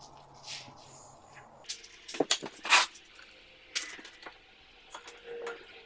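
Adhesive foam gun dispensing foam in several short hisses, the loudest a little under three seconds in, with a few knocks and scrapes from handling the aerated concrete blocks and tools.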